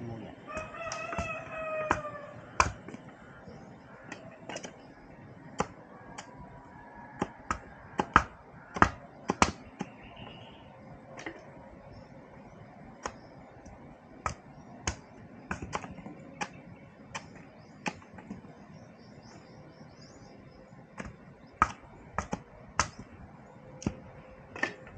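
Bolo knife chopping bamboo on a wooden block: sharp, irregular chops roughly a second apart. A rooster crows once near the start.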